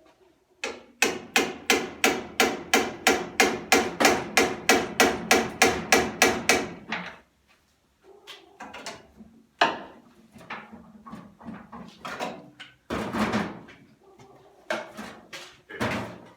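Hammer driving a chisel: a fast, even run of about three to four sharp metal blows a second for some six seconds, then a short pause and a few scattered, irregular knocks.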